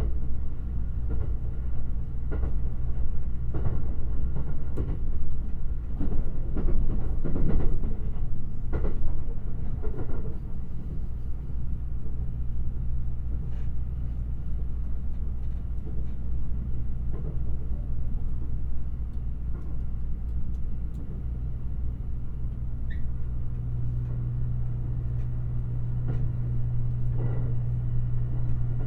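Limited Express Shirasagi electric train running along the line, recorded binaurally on board: a steady rumble and low hum, with repeated wheel clicks over rail joints in the first ten seconds or so. About 23 seconds in, a steady low hum grows louder.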